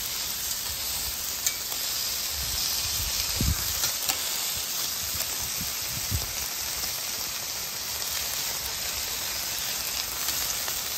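Ground beef smash burger patties sizzling on a Blackstone steel flat-top griddle as one is pressed flat under stacked spatulas, a steady frying hiss. A few light clicks and a couple of dull low thumps come through over it.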